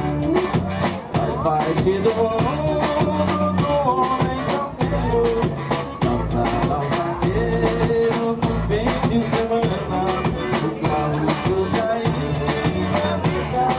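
Gaúcho vanera band music: a button-accordion melody over bass and drum kit at a steady dance beat.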